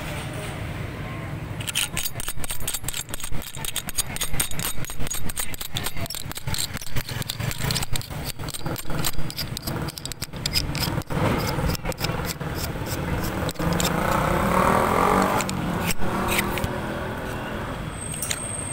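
Street traffic with a steady low engine hum, and a vehicle passing that swells and fades, loudest about fifteen seconds in. Rapid clicks and rattles come thick over roughly the first half.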